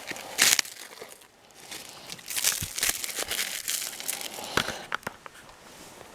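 Dry melaleuca paperbark being torn and crumpled by hand, in irregular bursts of crinkling and tearing with a few sharp cracks.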